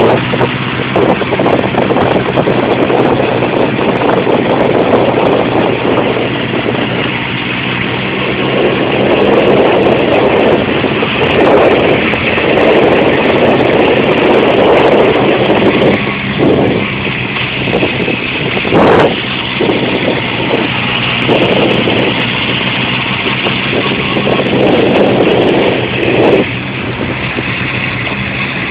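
Honda CB750's air-cooled inline-four engine running at steady revs on the move, with wind noise on the microphone swelling and fading. There is one sharp knock about two-thirds of the way through.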